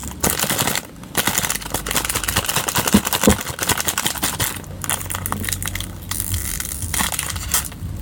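Close crinkling and crackling handling noise, something being squeezed and worked in the hands, full of small clicks.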